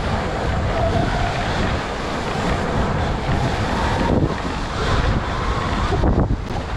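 Wind rumbling on the microphone of a camera carried on a moving electric dirt bike, with the electric motor's whine rising and falling in pitch.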